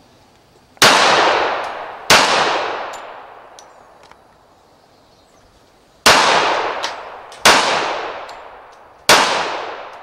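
Semi-automatic pistol firing live rounds: five single shots, each trailing off in a long echo. The first two shots come about a second apart, then after a pause of about four seconds three more follow at a steady pace.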